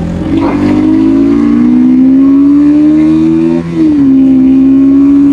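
Motorcycle engine pulling under acceleration, its pitch climbing slowly. A little over halfway through the pitch dips sharply and the sound briefly drops, as at a gear change, then it runs on steadily.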